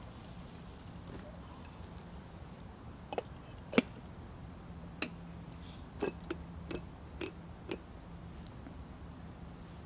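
Metal camp cookware clinking and knocking as a small kettle and lid are handled and set on a small camp stove. A couple of knocks come about three seconds in and the loudest just before four seconds. A run of lighter clinks, some with a brief metallic ring, follows between about five and eight seconds in.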